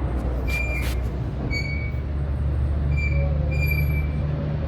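A steady low mechanical hum with about four short, high squeaks over it, the first about half a second in and the last near the end.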